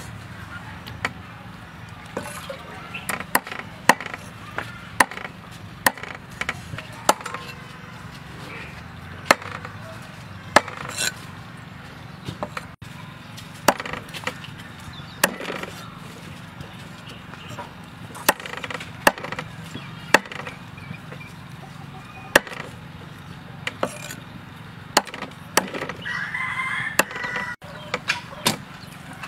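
Meat cleaver chopping through frog legs and carcasses onto a wooden chopping block: sharp chops at an irregular pace, about one or two a second.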